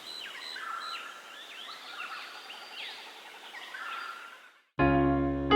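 A group of house sparrows chirping: many short, overlapping, mostly falling chirps over faint background hiss. The chirping stops near the end, and soft piano music begins just after.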